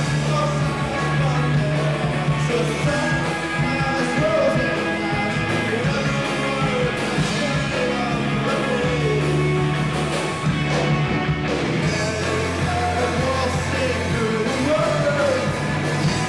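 Live rock band playing: electric guitars, bass guitar and a drum kit, with a man singing at the microphone.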